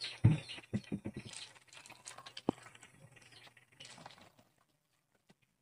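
Knocks and clatter of a plastic water pitcher and plastic cups being handled on a table, then water being poured from the pitcher into the plastic cups, faint, stopping a little over four seconds in.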